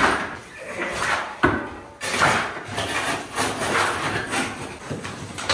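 Steel masonry trowels scraping and chipping at old cement on a floor, in a run of rough strokes about two a second.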